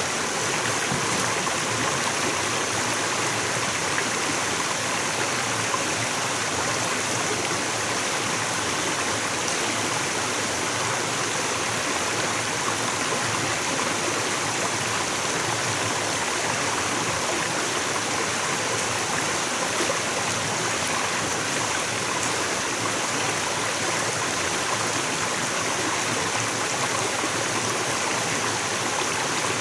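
Shallow rocky forest stream flowing steadily over stones, a constant even wash of water sound.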